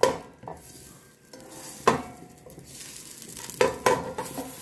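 A spoon knocking and scraping against the bottom of a large aluminium pot as lumps of ghee are dropped in, several separate knocks with the loudest around two seconds in and a cluster near the end. Between the knocks, a faint sizzle of the ghee starting to melt in the hot pot.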